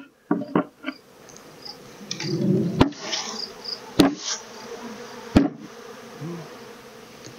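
Honeybees buzzing around an open hive, swelling briefly about two seconds in, with three sharp knocks spread through the middle.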